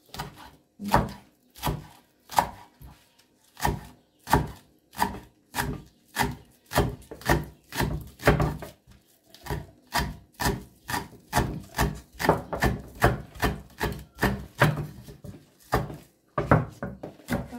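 Knife chopping onion on a cutting board: a long run of quick, even strokes, about two to three a second, a little faster after the first few seconds.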